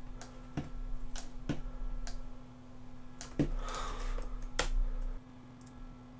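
A few separate clicks of computer keys being pressed, about one a second, as a terminal command is entered, over a steady low hum.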